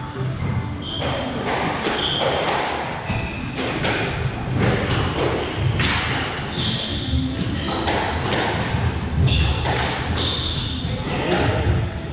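Squash rally in a walled court: the ball cracks against rackets and walls in sharp hits about once a second, with short high squeaks from shoes on the court floor between them.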